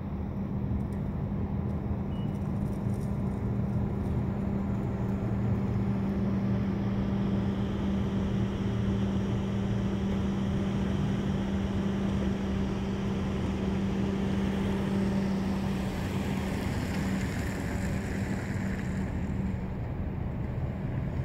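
A car engine running at a steady speed, a low even hum that holds one pitch throughout.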